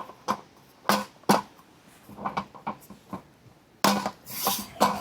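A roll-up egg-roll camping table being set up: a few sharp clacks and knocks as its slats and frame are handled, a short clatter, then rustling scrapes near the end.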